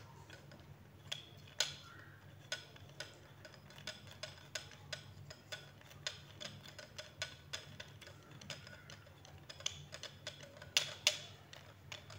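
Plastic adjustable phone-holder clamp worked by hand: a string of irregular light clicks and taps as its sliding jaw is pulled open and let back, with louder clicks near the end.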